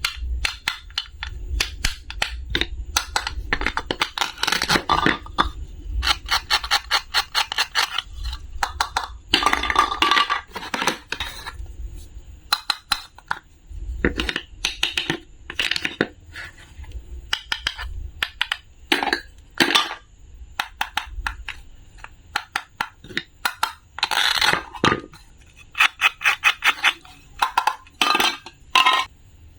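Small hard objects clicking and clinking together over and over, in quick runs of many sharp clicks with short pauses between them.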